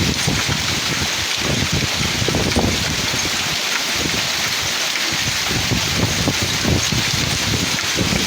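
Heavy rain falling as a steady hiss, with gusts of wind buffeting the microphone in irregular low surges.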